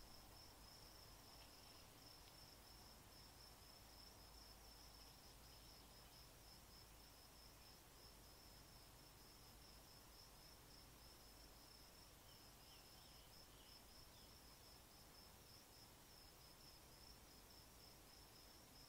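Faint outdoor ambience of insects chirring: one steady, high-pitched, rapidly pulsing trill, over a low background rumble.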